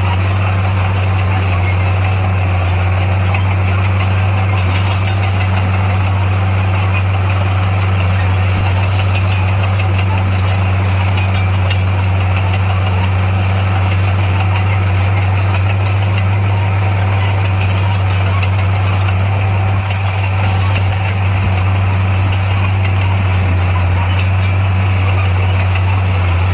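Diesel engine of heavy earthmoving machinery running steadily at a constant low pitch.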